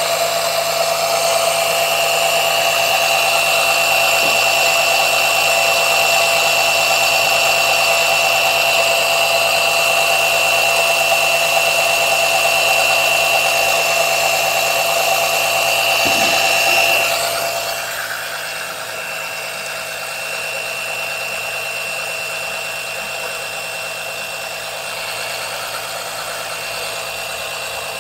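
Small electric oil-extractor suction pump running steadily with a whining motor tone, drawing air rather than oil through its suction line; small holes chewed in the pipe stop it from building enough vacuum. About 17 s in the sound changes and gets quieter, the lower part of the whine dropping away.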